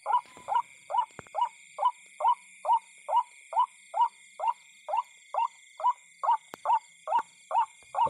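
An animal calling in a steady, evenly paced series of short notes, about two a second, over a constant high insect drone.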